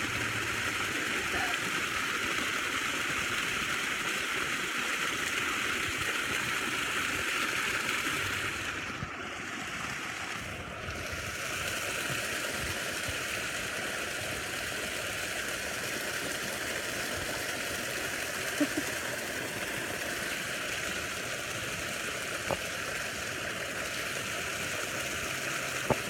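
Water from a pool waterfall spilling and splashing steadily into a swimming pool, briefly quieter about nine seconds in.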